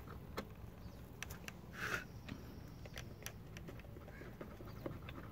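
Faint scattered clicks and light taps of small metal parts and hand tools being handled, over a low steady background hum.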